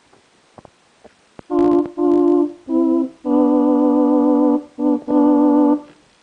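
Yamaha DX7s FM synthesizer playing six held notes with a steady vibrato, the fourth held longest. The notes start about a second and a half in, after a few faint clicks from the voice-select buttons. It is recorded through a digital camera's built-in microphone.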